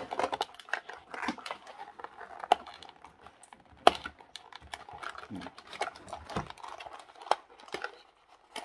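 Hands handling a cardboard toy display box holding diecast cars: scattered small clicks, taps and light crinkling, with one sharper click about four seconds in.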